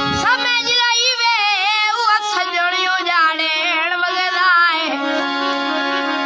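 A boy singing a wavering, ornamented melody over the sustained chords of a hand-pumped harmonium. About five seconds in the voice stops and the harmonium plays on alone.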